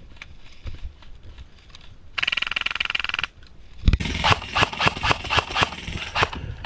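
A burst of rapid airsoft gun fire, a fast even rattle lasting about a second, comes about two seconds in. From about four seconds on there is a run of louder irregular knocks and rustling.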